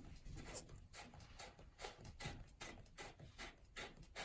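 Faint, repeated short scrapes and clicks, about three a second, as a washing machine's threaded cold-water supply hose coupling is turned off its fill valve by hand.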